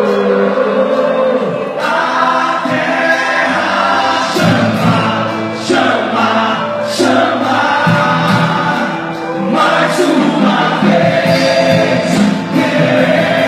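Gospel worship music: several voices singing together over a band, with sharp percussive hits now and then.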